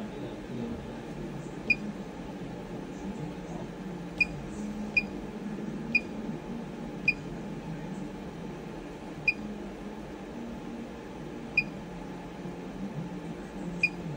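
Electronic keypad beeps from the JACK JK-9820-01 buttonhole machine's control panel: eight short high beeps, one to two seconds apart, as the up/down program keys are pressed. A steady low hum runs underneath.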